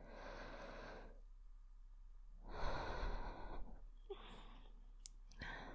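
A woman breathing slowly and deeply, close to the microphone, as a paced breathing exercise: a soft breath at the start, then a longer, louder one about two and a half seconds in. A few faint mouth clicks follow near the end.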